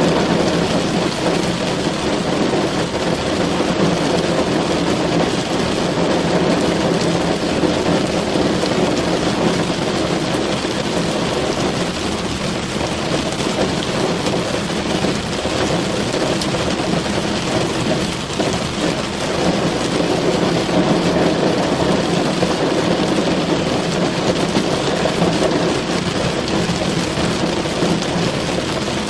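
Rain falling steadily on a car's roof and windows, heard from inside the car.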